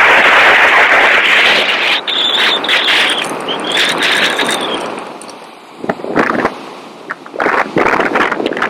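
Wind buffeting the microphone over the sea, loud at first, with two high arching tones about two and four seconds in, then dropping quieter before gusts and knocks return near the end.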